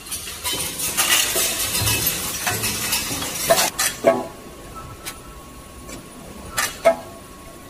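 Metal screws rattling and clinking in an automatic screw counting and packing machine for about three seconds. Then come a few separate sharp clinks, two close together and two more near the end, as small bags of screws drop from a checkweigher onto a pile of bags.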